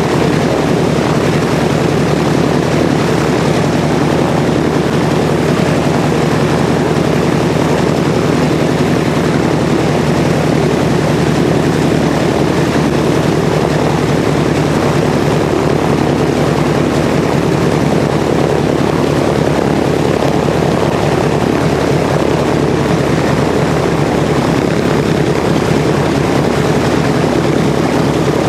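Grumman TBM-3E Avenger's Wright R-2600 twin-row radial engine running steadily at low power on the ground, with the propeller turning.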